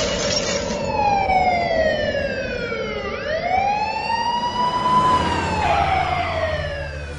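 Emergency vehicle siren wailing in one slow cycle: the pitch falls, rises, then falls again over about six seconds. A loud rushing noise from the crash cuts off about a second in.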